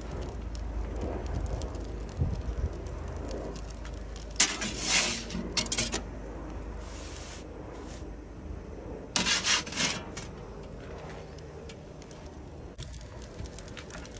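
Metal pizza peel scraping and clinking against the stone of an outdoor gas pizza oven as the pizza is lifted and turned, in short bursts about four and a half seconds in, again just after, and once more at about nine seconds, over a steady low rumble.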